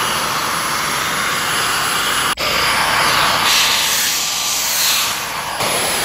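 Dyson V15 Detect cordless vacuum running steadily at full suction, with a brush attachment sweeping dust off a hard surface. The motor noise breaks off for a moment a little over two seconds in.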